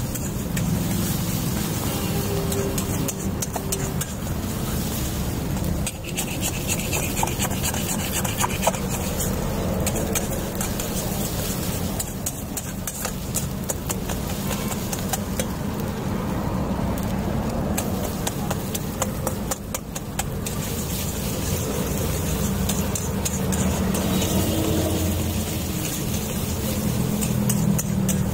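A flat metal spatula scraping and chopping egg bhurji around an iron kadai in repeated short strokes, over a steady low rumble.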